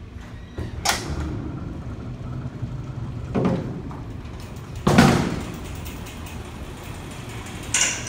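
Freight elevator's power-operated doors opening, hoistway door and then the car's inner door: a low motor rumble broken by four metallic bangs and clanks, the loudest about five seconds in and the last near the end.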